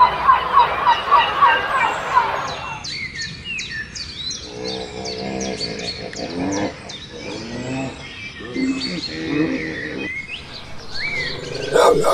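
Birds chirping and calling, many short calls overlapping. The first two or three seconds hold a quick run of repeated notes, about four a second. After that come scattered high chirps over lower calls, with a louder burst of calls near the end.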